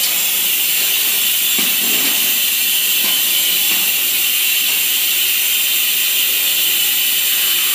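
Steady, loud hiss of workshop machinery, even and unbroken.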